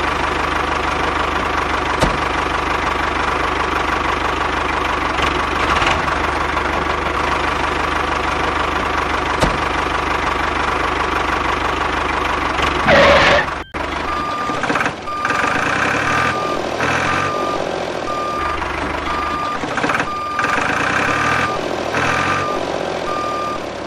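Tractor engine running steadily. About halfway through, after a brief louder burst and a short break, a reversing alarm starts beeping a little more than once a second over the engine as the tractor backs its trailer.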